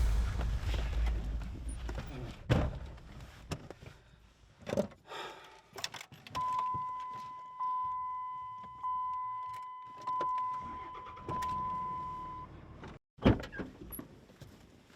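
A truck's warning chime dinging five times, about one a second, among knocks, clicks and thumps of the doors and keys.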